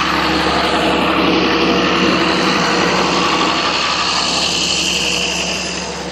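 A vehicle engine running steadily at an even pitch, loud through the middle and easing off near the end.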